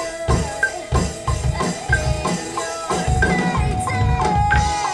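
Band music with a steady drum beat, about four hits a second, under melody lines: a drum take being tracked or played back in the studio.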